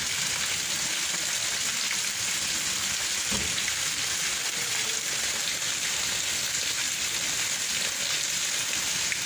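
Steady rain falling on a wet street and its puddles, an even hiss.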